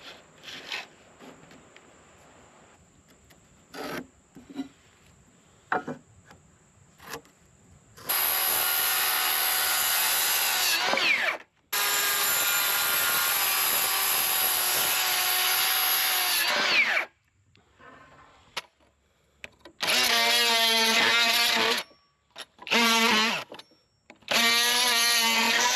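Electric power saw cutting 2x4 studs: two long runs of the motor, each winding down with falling pitch, then three shorter cuts near the end. Scattered knocks of handling the lumber come before.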